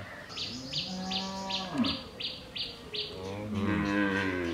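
A farm animal calls twice in long, low calls, the second rising and then falling in pitch. Under them a bird repeats a short, high chirp about three times a second.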